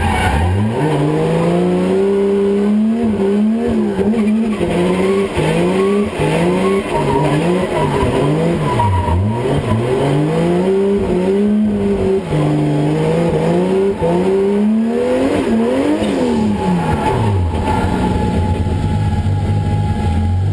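2JZ straight-six engine of a Toyota Altezza drift car, heard from inside the cabin, revving up and down again and again under throttle while drifting. In the last few seconds it settles to a low, steady run.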